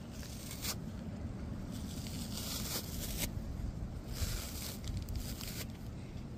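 Fluffy fibre fur being pulled and torn off a small toy by hand, rustling and tearing in several short scratchy spurts over a low steady rumble.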